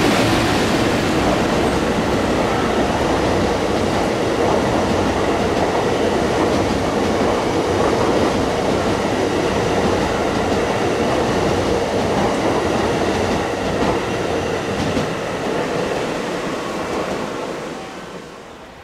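Freight train of an EF210 electric locomotive hauling new Sagami Railway 21000-series EMU cars running past, a steady loud rolling noise of wheels on rail. It dies away over the last couple of seconds as the train moves off.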